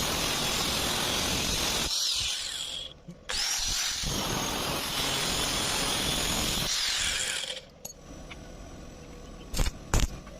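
Metalworking power tool running in two long stretches, the first cut off at about three seconds and the second at about eight, with a faint whine above the noise; a few sharp clicks follow near the end.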